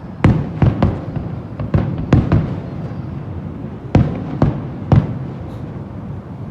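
Fireworks display shells bursting: a string of sharp bangs over a continuous low rumble, several in quick succession in the first two and a half seconds and two of the loudest about four and five seconds in.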